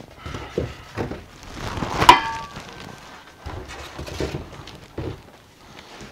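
Handling knocks from a telescope mount's steel tripod in its plastic wrapping as it is lifted out of a cardboard box. One sharp metallic clank about two seconds in rings briefly. A few softer knocks and some rustling follow.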